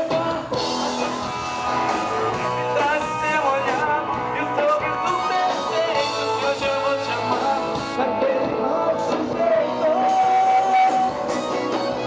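Live band music with a male singer over guitar, drums and accordion, picked up from within the audience. A long note is held a little past the ten-second mark.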